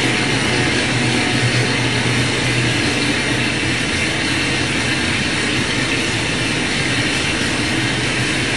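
Steady droning noise: a low hum under an even hiss, with no breaks or changes.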